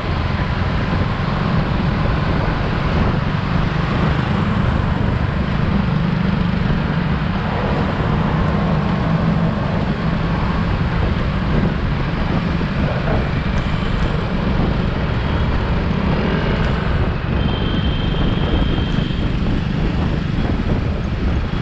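Riding sound from a Suzuki Access 125 scooter's single-cylinder four-stroke engine cruising steadily, mixed with wind rush on the handlebar-mounted camera and the noise of surrounding road traffic.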